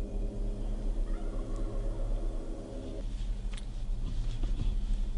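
A wild turkey tom gobbling, over a low steady drone.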